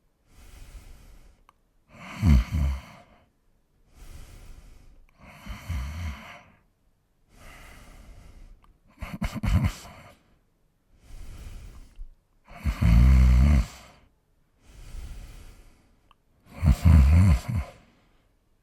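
An old man snoring in his sleep: five loud, low snores come about one every three and a half seconds, with softer, breathy breaths between them.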